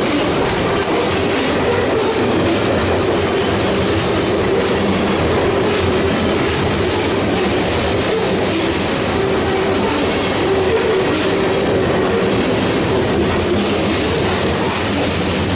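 Covered hopper cars of a grain train rolling past at speed: a steady, loud rumble and rattle of steel wheels on the rails, with a faint steady ringing tone underneath.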